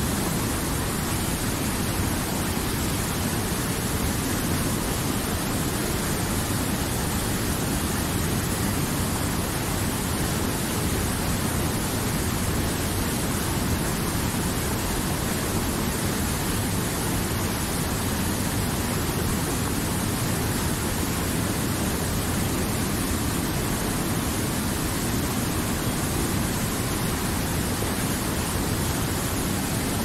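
Fast mountain river rushing over boulders and a small cascade: a steady, even whitewater rush with no change in level.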